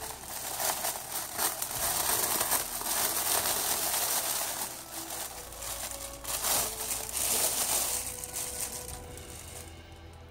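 Clear plastic packaging bag crinkling and rustling as it is handled and pulled off a large prop, with many sharp crackles. It dies down near the end as music comes in.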